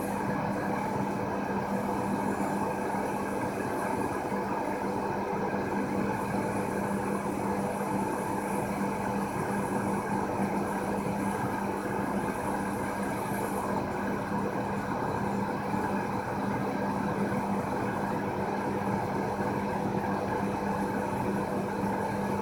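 Steady, unchanging machine hum with a constant low tone from a Renishaw AM250 metal laser-sintering machine running a build.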